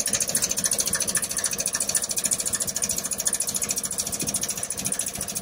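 A small engine or motor running steadily with a fast, even pulse of about ten beats a second.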